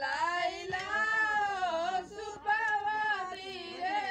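Unaccompanied singing by a high voice, holding long notes that glide slowly up and down in a folk-song line.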